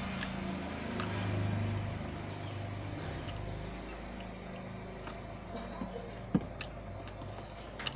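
A motor vehicle's engine drones by, swelling about a second in and then easing off. Chewing and scattered sharp clicks sit over it, with one louder click a little over six seconds in.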